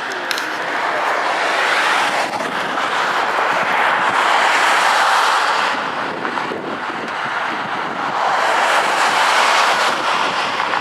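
Loud, continuous roar of a fireworks display, swelling up twice and easing off between, with no single bangs standing out.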